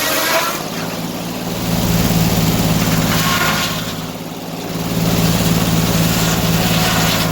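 An engine running steadily, its sound dropping about four seconds in and then picking back up.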